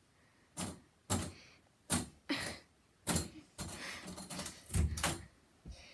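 Hands pawing at a closed interior door: a run of sharp knocks with scratching between them, and the metal doorknob rattling as it is worked.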